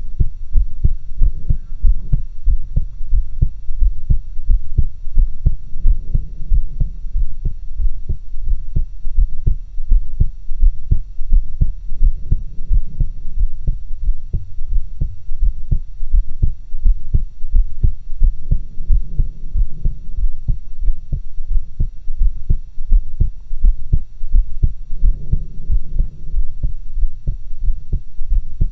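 A woman's heartbeat heard through a stethoscope pressed to her chest, recorded in stereo with two stethoscopes: a steady, unbroken rhythm of low thumps, with a softer rushing swell every six or seven seconds.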